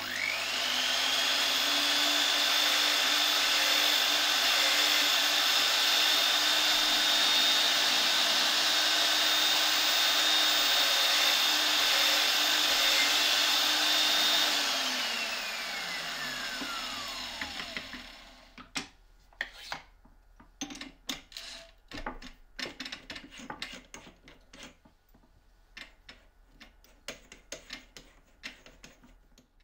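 A drill in a homemade wooden drill stand starts up and runs steadily while its twist bit bores into a plastic cutting board. About halfway through it is switched off and winds down with a falling whine. After that comes a run of light, irregular clicks and taps.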